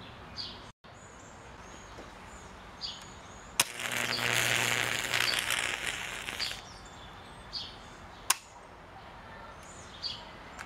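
High-voltage arc from a microwave oven transformer burning through a cheap alarm clock's circuit. A sharp crack comes about three and a half seconds in, then about three seconds of loud buzzing crackle over a low hum until it cuts off. A second sharp snap follows a couple of seconds later.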